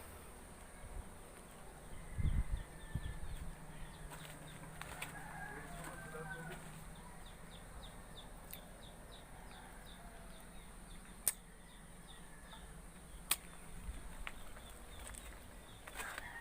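Faint chickens in the background, clucking with a flurry of wing flaps about two seconds in. Two sharp clicks come later.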